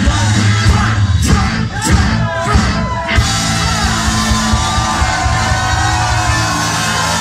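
Live rock band, with electric guitars, drums, trumpet and saxophone, playing loudly with yelled vocals. There is a quick run of rising notes about two seconds in, and then held notes.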